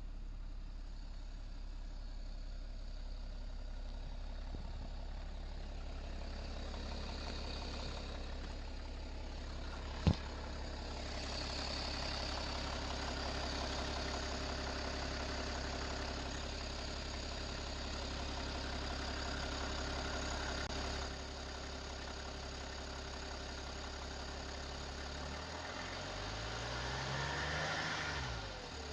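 BMW 525d's M57 straight-six diesel running at idle with a suspicious noise that the owner cannot place between a bad timing chain and the ZF 6HP automatic transmission. A single sharp click comes about ten seconds in, and near the end the engine revs up briefly and falls back.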